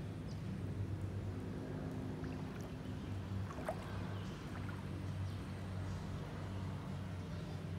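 A steady low engine hum, with a brief high chirp about halfway through.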